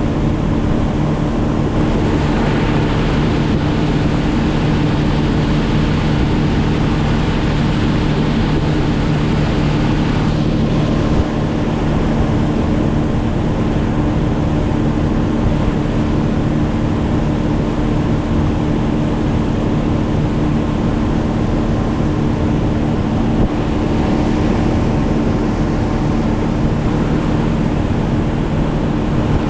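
Motorboat engine running at a steady speed, with water rushing past the hull and wind on the microphone.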